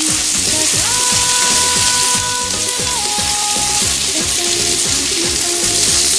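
Chicken and vegetable skewers sizzling in oil on a hot grill plate, a steady hiss, under background music with sustained melody notes and a regular beat.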